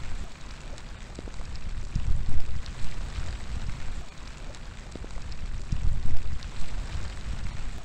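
Outdoor rain falling steadily with scattered individual drop hits, under low gusts of wind against the microphone that swell about two seconds in and again around six seconds.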